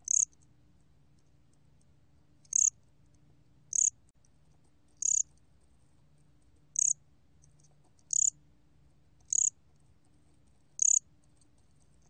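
A 곰귀뚜라미 (gom-gwitturami) cricket calling at 23 °C: eight short, high chirps at uneven gaps of one to two seconds.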